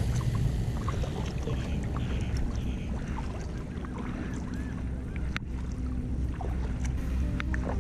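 Kayak paddle strokes: the blade dipping and pulling through the water, with scattered drips and small splashes, over a steady low rumble.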